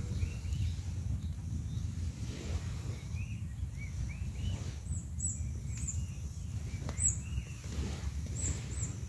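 Small birds chirping in short repeated calls, with sharper, higher chirps joining about halfway through, over a steady low rumble.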